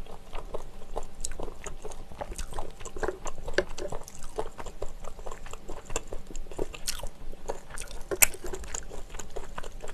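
Close-miked chewing and wet mouth sounds of someone eating seafood rosé pasta with chewy glass noodles and shellfish, with a few sharp clicks of a metal fork against the pan.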